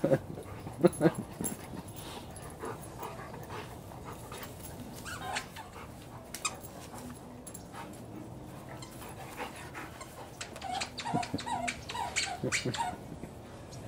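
Dogs play-fighting: a few knocks early on and again midway, then a run of about six short, high dog yips between eleven and thirteen seconds in.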